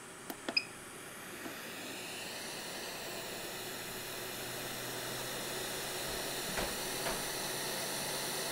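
Quick 861 Pro hot-air rework station: a button click with a short beep about half a second in, then the handpiece's fan blowing a steady hiss of air that slowly builds as the station wakes from sleep and heats to its set temperature. Two faint ticks near the end.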